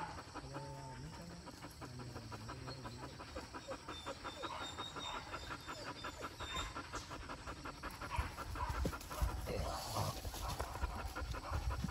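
A boar-hunting dog panting fast and steadily.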